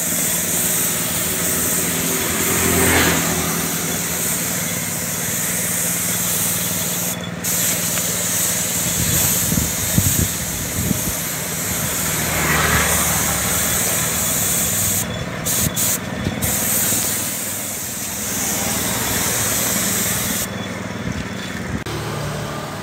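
Compressed-air gravity-feed spray gun spraying paint: a steady hiss that breaks off briefly a few times, over a low steady hum.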